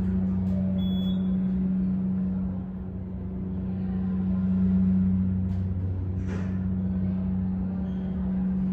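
KONE hydraulic elevator running, with a steady low hum from its pump unit carried through the car. A short hiss comes about six seconds in.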